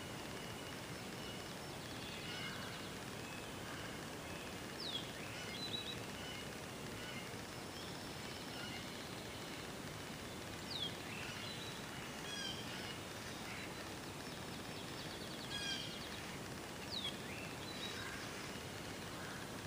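Several wild birds singing and calling over a steady background hiss. One repeats a short, sharply falling whistle about every six seconds.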